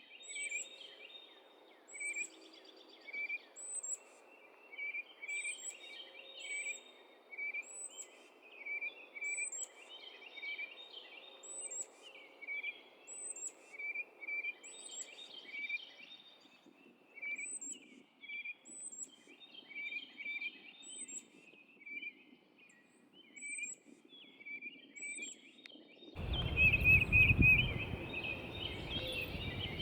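Small songbirds calling: short, high chirps repeated steadily about once or twice a second, with softer twittering between them. Near the end a loud, low rumble of wind buffeting the microphone comes in and stays.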